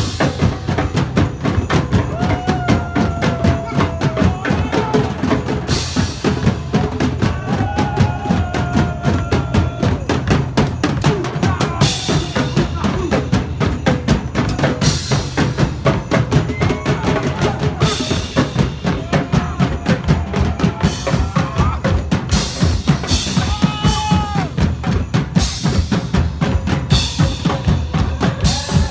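Loud drum-heavy music with a dense, fast beat, with brief bright splashes at intervals over it.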